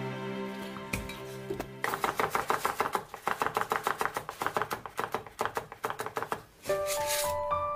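Cleaver chopping garlic on a wooden cutting board in a rapid run of strokes, several a second, from about two seconds in until shortly before the end. Soft background music with held notes plays at the start and again near the end.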